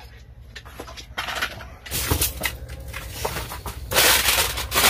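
Gear being handled and shifted about: scattered knocks and rustling, with a louder scraping rustle near the end, over a steady low hum.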